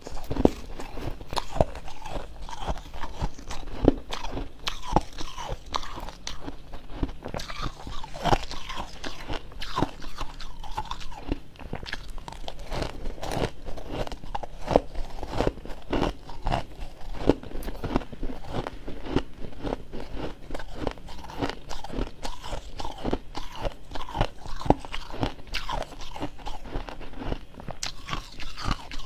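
Close-up crunching and chewing of freezer frost in the mouth: a dense, irregular run of crisp crunches.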